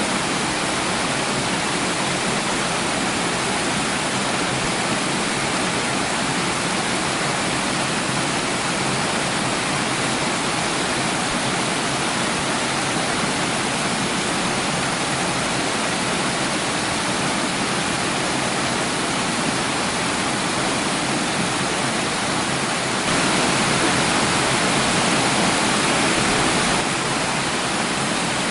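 Running water with a steady rush, a little louder for a few seconds near the end.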